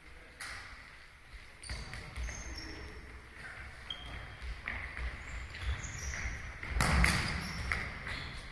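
Futsal ball kicked and bouncing on a hard sports-hall floor, echoing in the hall, with short squeaks of players' shoes on the floor and a louder burst of noise about seven seconds in.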